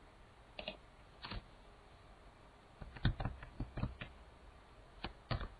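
Computer keyboard keystrokes as numbers are typed in: two single key presses, then a quick run of taps about three seconds in and a few more near the end.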